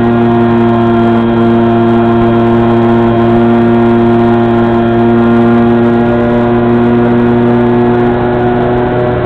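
Electric motor and propeller of an E-flite Opterra flying wing at steady cruise throttle, heard through the plane's onboard camera: a steady drone with several held tones on top that drift only slightly in pitch.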